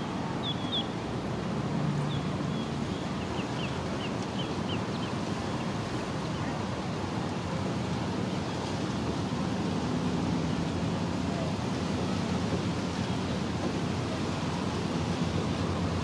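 Steady outdoor rushing noise, with a run of short, high chirps in the first five seconds.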